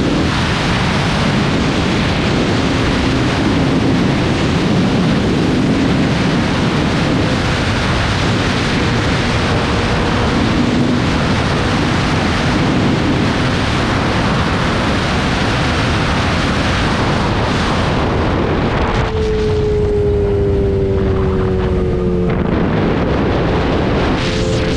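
Heavy wind rush on the microphone of a Yamaha R6 sport bike at speed, with its inline-four engine faintly underneath. Near the end the wind eases and the engine note falls steadily for a few seconds as the bike slows, then steps up to a higher pitch.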